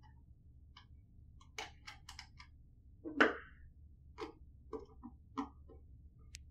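Scattered small clicks and taps from handling a wiring terminal: a crimped ring terminal being seated on a terminal screw and a screwdriver working the screw. One louder knock comes about three seconds in.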